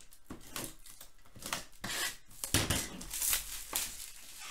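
Shrink-wrap on a sealed cardboard card box being slit with a blade and pulled off, with the box handled. It comes as a run of short scraping, rustling swishes, the loudest a little past halfway.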